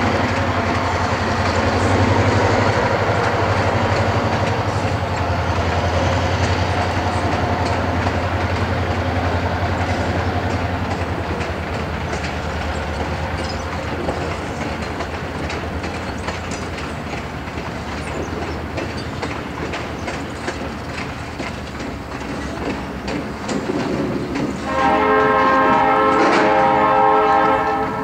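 Passenger cars of a train rolling by with a steady rumble and wheel clatter. Near the end a Lancaster & Chester EMD GP38-2 diesel locomotive sounds its horn in one long blast of about three seconds, a chord of several tones, as it reaches the grade crossing.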